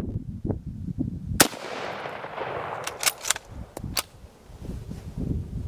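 A single shot from a Mosin-Nagant bolt-action rifle, ringing out for a second or so, followed by four sharp metallic clicks as the bolt is worked. Wind rumbles on the microphone around them.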